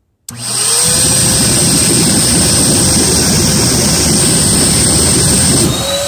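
Oreck XL vacuum cleaner motor, rigged as a blower, switched on about a third of a second in; it spins up within half a second, its pitch rising, then runs loud and steady. It is blowing air down a pipe into a sink of water, which churns and bubbles hard.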